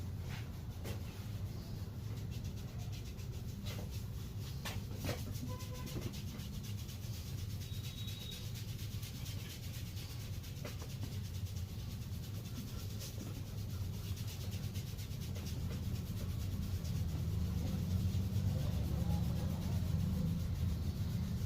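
Hands rubbing over skin in a massage: a steady, low rubbing that grows a little louder near the end, with a few light clicks.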